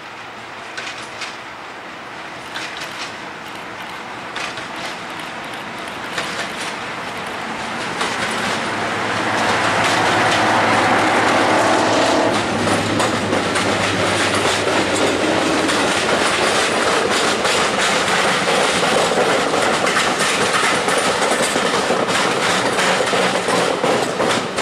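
Diesel locomotive approaching and passing underneath, growing louder over the first nine seconds with its engine loudest about ten to twelve seconds in. The coaches then roll by with steady wheel noise and repeated clicks.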